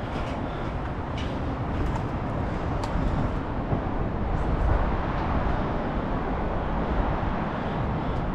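Steady low rumble of distant city traffic mixed with wind on the microphone, with a few faint ticks.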